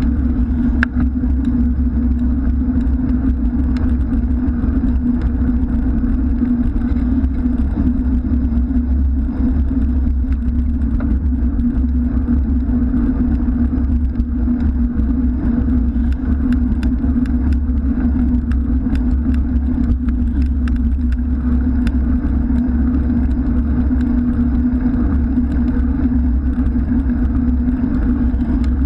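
Steady, loud rumble of wind buffeting and road vibration picked up by a bicycle-mounted camera while riding, with car traffic on the adjacent road and a few light ticks from the bike.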